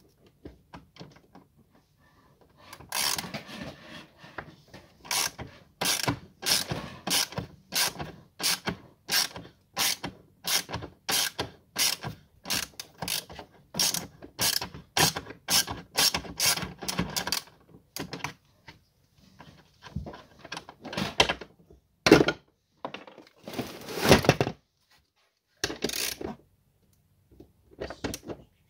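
Ratchet wrench clicking in quick back-and-forth strokes, about two a second, as it undoes a 13 mm bolt on an ottoman bed's gas-strut lift mechanism. After about eighteen seconds the strokes stop and only a few short bursts of clicking follow.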